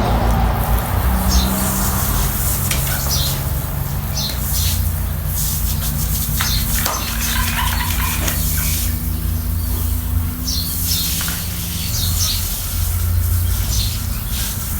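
Birds chirping now and then over a steady low hum and rumble.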